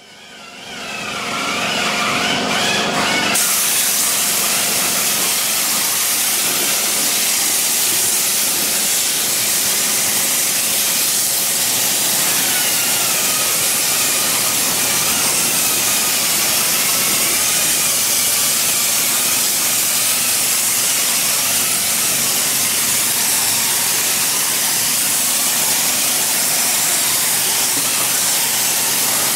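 Tornador air-powered cleaning gun spraying cleaning solution over an engine bay: a steady, loud hiss of compressed air and spray, swelling up over the first couple of seconds.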